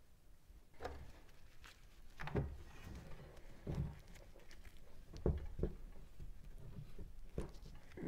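Handling noise as a carburetor, air filter and rubber intake hose are worked onto a reed valve intake and set on a wooden workbench: a string of light, irregular knocks and clicks.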